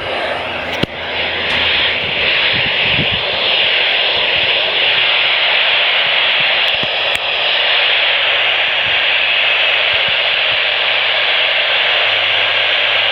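Radio receiver giving out a steady hiss of static, with a few clicks in the first few seconds: the station's signal has been lost.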